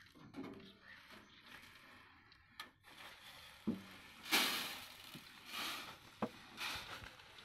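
Grain being scooped out of a woven plastic sack with a metal tin: the sack rustling and the grain pouring with a hiss in several short bursts, the loudest about halfway through, with a few sharp knocks of the tin.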